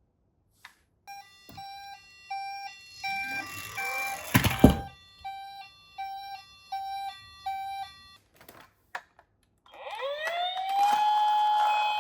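Toy ambulance's electronic two-tone hi-lo siren (pee-po) alternating about twice a second, with a loud clattering rumble about four seconds in as a toy car runs down the slope. Near the end a second siren starts, rising in pitch into a steady wail.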